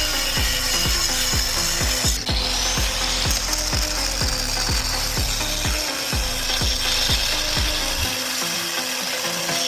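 A power tool cutting into the steel shell of an LG linear refrigerator compressor: a steady high whine that dips once under load about two seconds in and picks up again, over regular low thumps about twice a second.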